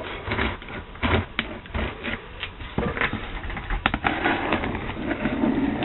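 Knife slitting packing tape on a cardboard box: irregular scraping, crackling and clicking as the blade and the box are worked one-handed.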